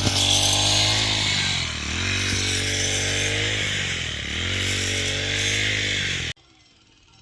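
A small engine running hard, its pitch dipping and recovering about every two and a half seconds as if under load, then cutting off suddenly about six seconds in.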